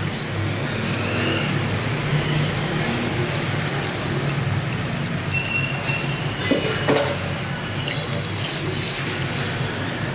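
Water from a hand-held shampoo-basin sprayer running and splashing on hair, over a steady low rumble.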